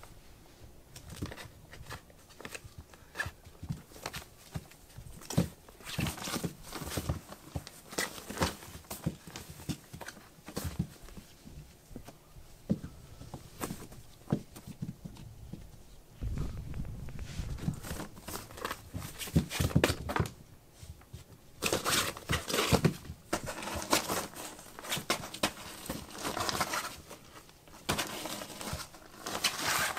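Kittens scrambling around a pop-up fabric play tent: scratchy rustling and crinkling of the tent fabric, claw scrapes and light paw taps on the floor. The clawing gets louder and busier in the last part as a kitten climbs up the side of the tent.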